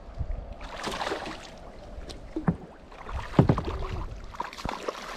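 Water splashing beside a kayak and several knocks on the hull, the loudest about three and a half seconds in.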